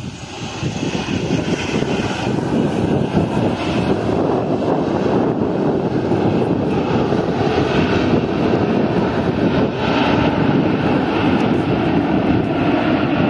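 Airliner engines giving a loud, steady rush that swells over the first second or two and then holds.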